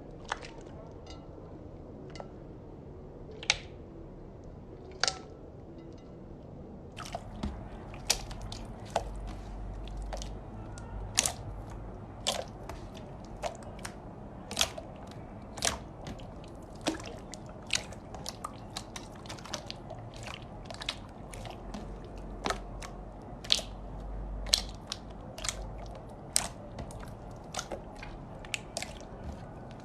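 Slime being squished and pressed by hand, giving sharp crackling clicks: a few scattered ones at first, then many in quick succession from about seven seconds in.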